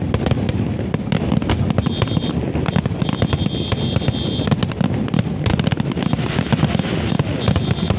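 Aerial fireworks going off in quick succession: a dense, continuous string of bangs and crackles from bursting shells.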